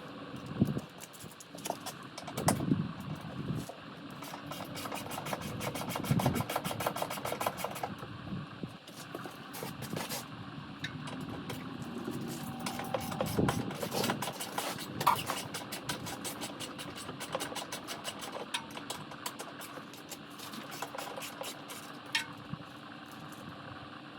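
Tool work on an ATV's racks: long runs of rapid mechanical clicking, with a few sharp knocks near the start.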